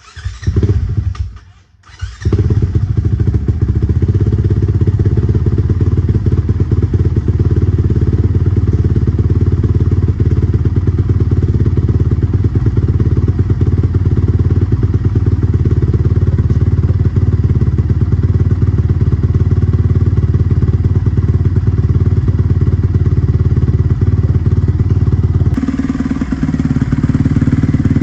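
2020 Honda CRF450R's single-cylinder four-stroke engine breathing through a Yoshimura RS-9T exhaust: a short burst of running cuts out, then it catches about two seconds in and runs at a steady idle. A little before the end the note shifts higher.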